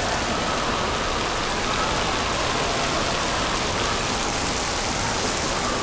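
Steady rush of falling and splashing water, spread evenly and unbroken, as from the sprays and dumps of an indoor water park.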